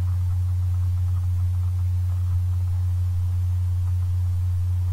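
A steady low hum with no other sound over it: a pause between spoken sentences.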